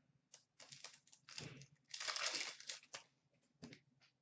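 Upper Deck hockey card pack wrapper crinkling and rustling as it is handled, in short bursts, the longest about two seconds in, with a light tap near the end.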